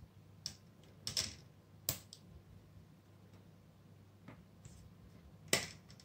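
Plastic screen bezel of a ThinkPad X240 laptop being pressed back onto the lid, its clips snapping into place in about five sharp clicks spread out over a few seconds.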